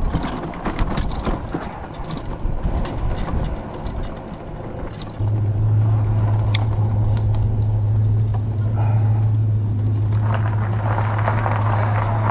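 An e-bike being ridden over a rough sandy path, with wind noise and rattling clicks from the bike. About five seconds in, a steady low hum starts abruptly, becomes the loudest sound, and holds.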